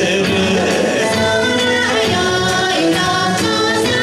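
Kawachi ondo performed live: band accompaniment playing steadily, with singing.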